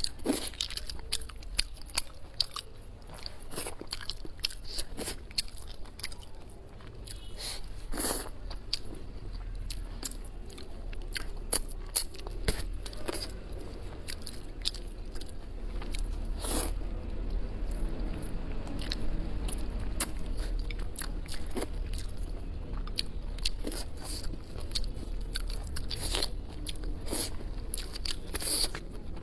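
A person biting and chewing crunchy food close to the microphone, with frequent short crunches and clicks throughout.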